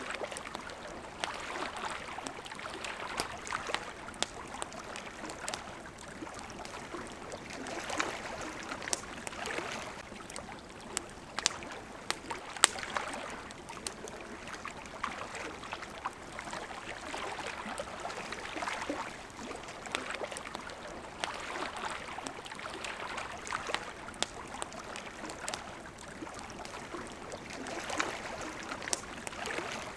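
Water lapping against a riverbank in gentle swells every few seconds, with the scattered sharp pops and crackle of a wood campfire.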